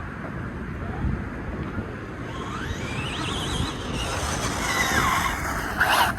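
Electric drive motor of a 1/7-scale 8S RC car whining. The pitch rises as the car accelerates, then falls as it slows, over a steady rough rumble, with a louder burst near the end.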